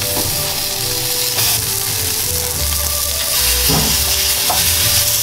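Beef tournedos steaks searing in hot olive oil in a stainless steel frying pan: a loud, steady sizzle, with a few light clicks as metal tongs turn the meat. Background music plays underneath.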